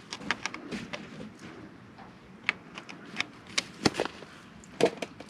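Light, irregular clicks and knocks of hand tools on a rounded-off motorcycle oil drain bolt, with a couple of sharper knocks near the end.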